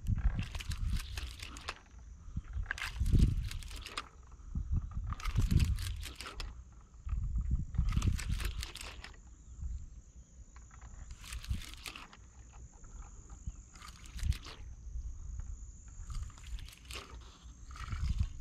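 Wind gusting across the microphone in irregular buffets, deep rumbles with crackle, about every two seconds. Under it a steady high trill of insects, likely crickets, runs throughout.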